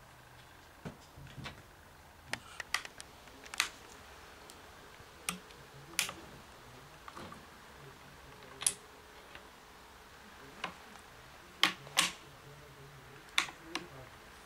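Sharp metallic clicks and snaps from a Springfield Model 1873 trapdoor rifle's action being worked by hand at the breech and hammer. About a dozen clicks come at irregular intervals, with the loudest pair a little past the middle.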